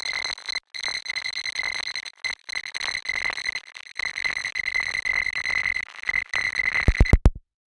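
Oscilloscope music: the same electronic signal that draws the shapes on the CRT screen, here a high, steady whistling tone over crackling hiss, broken by several brief dropouts. A few low thumps come near the end, then it cuts off.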